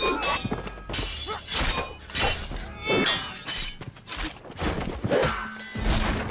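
Film sword-fight sound effects: steel blades clashing with short metallic rings, mixed with blows and thuds, coming about once every half second to a second.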